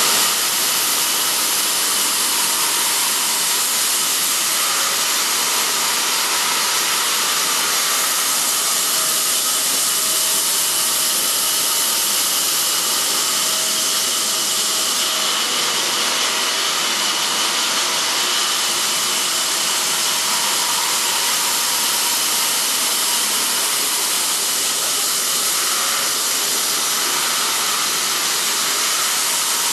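2 m granite cutting saw running and cutting through stone: a loud, steady, hissing grind with a faint high whine through it and no let-up.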